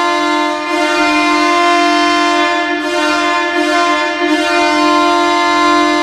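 Ottawa Senators' NHL arena goal horn sounding one long, steady blast at a constant pitch, the signal that the home team has scored.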